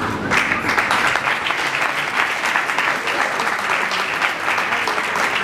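Audience clapping steadily, many hands at once, starting abruptly.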